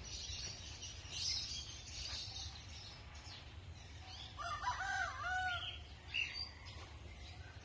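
A rooster crows once, a wavering call of about a second and a half starting about four seconds in, over scattered small-bird chirps and a steady low rumble.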